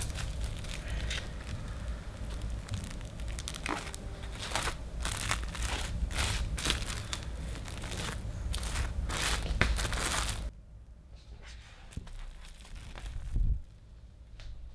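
Plastic cling film crinkling and crackling as it is pulled up and pressed around a loaf cake: a quick, dense run of rustles that stops about two-thirds of the way through.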